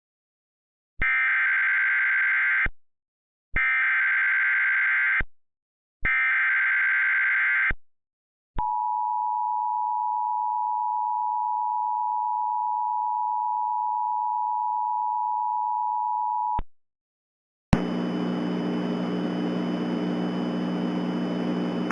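Emergency Alert System tones: three short bursts of SAME header data, then the two-tone EAS attention signal (853 and 960 Hz) held steady for about eight seconds. Near the end a steady hum with hiss begins.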